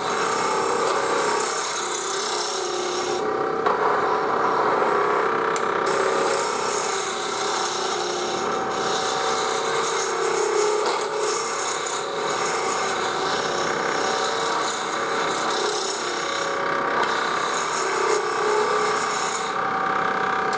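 Spindle roughing gouge cutting a spinning square wooden spindle blank on a lathe running at about 3,000 rpm: a steady shaving cut with a few brief lulls as the tool eases off. The blank is not yet fully round, so the gouge still bounces on the corners.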